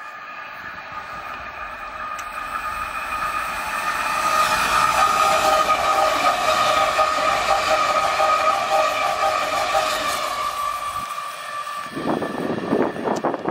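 Munich S-Bahn class 423 electric multiple unit approaching and passing close by, its running noise swelling to a peak about halfway through with a steady high whine over it, then easing off. Near the end the sound changes abruptly to a rougher, uneven rumble.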